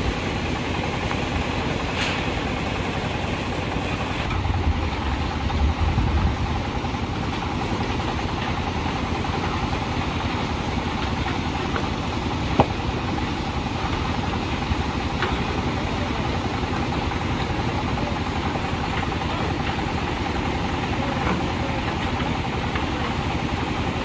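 A concrete mixer's engine running steadily, with a louder low rumble for a couple of seconds about five seconds in. A single sharp knock comes about halfway through.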